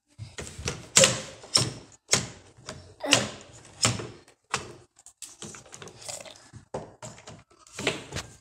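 Irregular sharp clicks and knocks, several a second, some louder than others.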